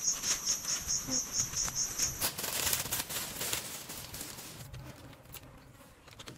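Insect chirping in even high-pitched pulses, about five a second, stopping about two seconds in. It is followed by a hissing, rustling noise lasting about a second and a half, then fading.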